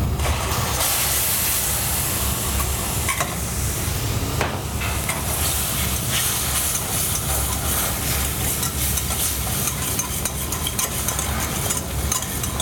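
A wire whisk scraping and stirring mashed aubergine into a sizzling butter-flour roux in a stainless steel saucepan, in rapid strokes, over a steady low hum.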